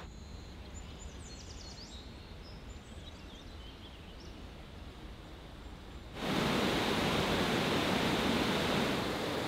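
Quiet outdoor ambience with a low rumble. About six seconds in it cuts abruptly to a louder, steady rushing noise.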